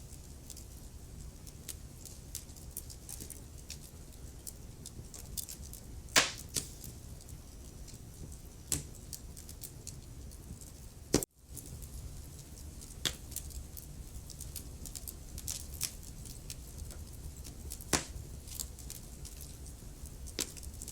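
Wood fire crackling in a fireplace: a low steady rumble under irregular small snaps, with three louder pops about six, eleven and eighteen seconds in. Just after the middle pop the sound cuts out for an instant.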